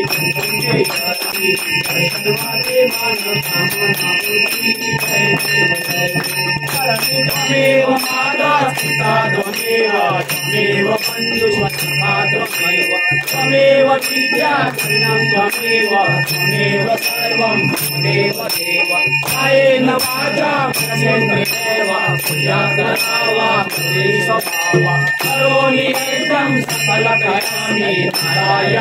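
Devotional music with metallic jingling struck in a fast, steady rhythm over a held drone and a wavering melody.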